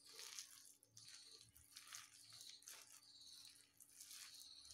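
Faint, repeated crunching and squishing of sliced onions being mixed by hand with gram flour and rice flour in a glass bowl, a dry batter with no water added.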